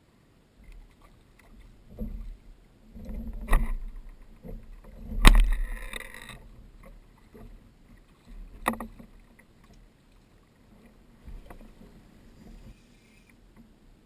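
Knocks and bumps against a fishing kayak's hull, four main ones with the loudest about five seconds in, over low handling rumble.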